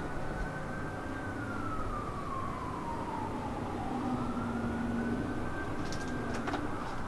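Emergency vehicle siren wailing, its pitch sliding slowly down and then back up again. A few sharp clicks come near the end.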